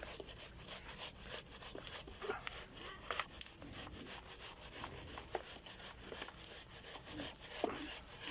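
Faint scraping strokes of a hand tool drawn over wet cement mortar, with a few short knocks, as the cement is worked and smoothed.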